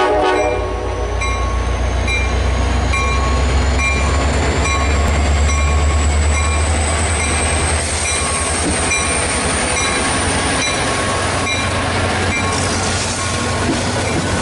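A train running, with a steady low rumble and a high whine that slowly rises in pitch for about ten seconds. A short ring repeats about every half second over it.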